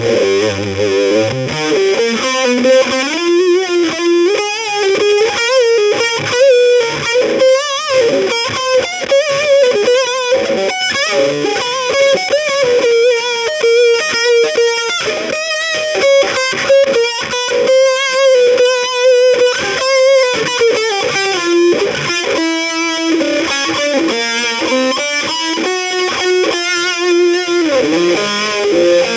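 Music with a distorted electric guitar playing a melody.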